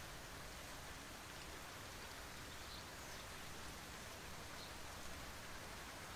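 Steady rain falling, an even hiss with no breaks, with a couple of faint short high chirps in it.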